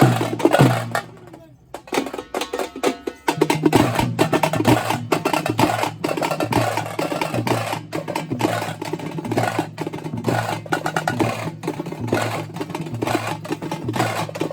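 Tamte frame drums beaten with sticks in a fast folk rhythm. A few loose strokes come first, then the drummers break into a rapid steady beat about three and a half seconds in.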